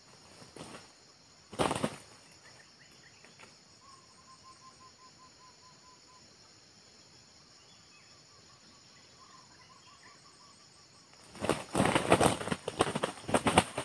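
Two red junglefowl cocks fighting, with bursts of wing-flapping: a short flurry early on, then a long, loud flurry of flapping and scuffling over the last two and a half seconds.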